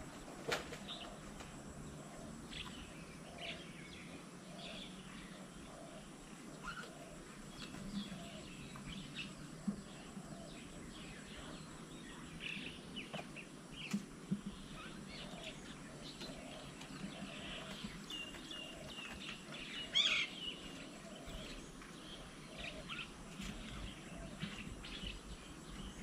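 Outdoor birdsong: assorted small birds chirping and calling in short high notes scattered throughout, with runs of low, evenly spaced notes and one louder call about 20 seconds in.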